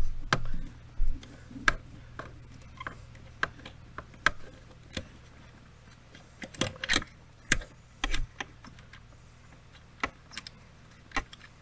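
Irregular metallic clicks and clinks of a ratchet with a 12 mm socket working loose a brake-module mounting nut behind the brake pedal, a few short strokes at a time. The clicks bunch together between about six and eight and a half seconds in, over a low steady hum.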